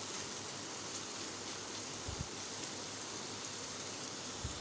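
Chicken and vegetable filling frying in a steel pan, a steady, even sizzle, with a couple of soft low knocks.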